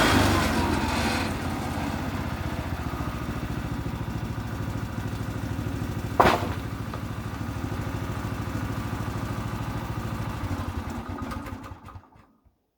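Petrol engine of a Timbery M100 portable bandsaw sawmill dropping back from full speed and idling with an even chug, with one sharp knock about six seconds in. The engine then winds down and stops near the end.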